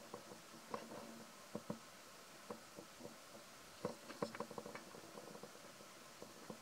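Faint, irregular soft clicks and smacks of a young macaque chewing corn, then a cluster of louder clicks and rustles about four seconds in as it scampers off through dry grass and leaf litter.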